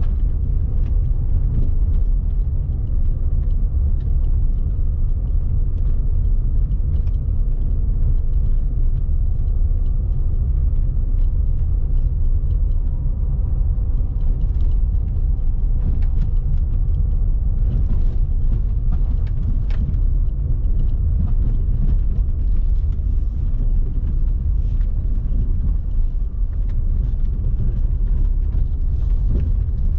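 Car driving along a forest road: a steady low rumble of engine and road noise, with scattered sharp clicks throughout.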